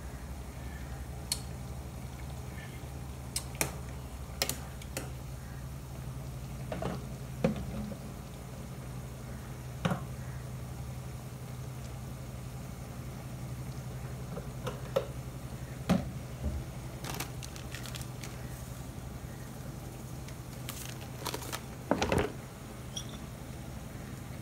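Adobo sauce simmering in a frying pan over a steady low hum, with scattered clicks and knocks from a spatula, pan and bottles being handled, and a cluster of them near the end.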